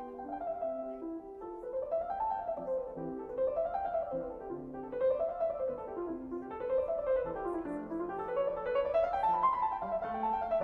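Background piano music: quick runs of notes sweeping up and down over and over.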